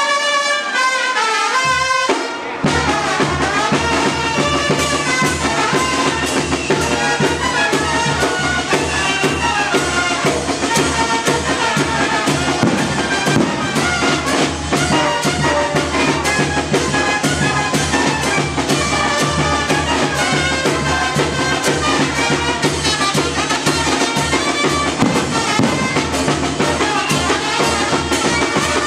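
A brass band playing music for the chinelos dance, trumpets and trombones over a steady drum beat. About two seconds in the music breaks off briefly and a new passage starts.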